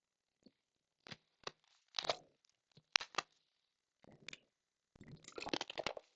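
Irregular crunching and crackling close to the microphone: a few sharp separate clicks, then a denser run of crackles near the end.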